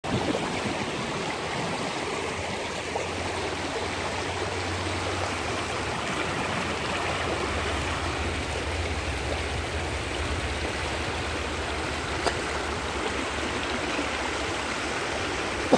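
Shallow rocky creek rushing steadily over riffles and stones.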